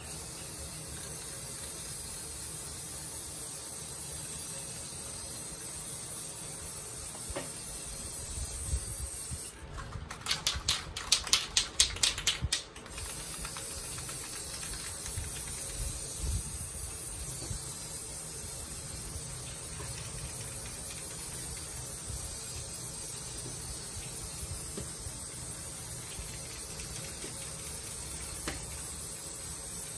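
Aerosol spray can hissing steadily as paint is sprayed on. About ten seconds in, the can is shaken for a couple of seconds, its mixing ball rattling in quick, sharp clicks that are louder than the spraying.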